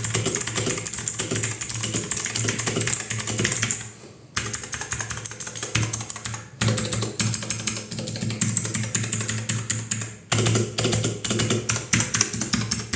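Gamen Titan V 60% mechanical keyboard being typed on quickly to show off its switch sound: a fast, dense clatter of key clicks, with brief pauses about four, six and a half and ten seconds in.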